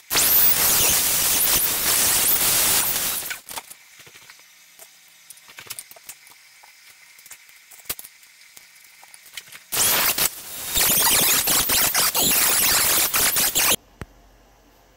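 Dremel rotary tool drilling and grinding at the metal rivets on the end hook of a steel tape measure. It comes in two loud bursts, one at the start and one from about ten seconds in. Between them is a quieter stretch of light clicks, and the second burst cuts off suddenly.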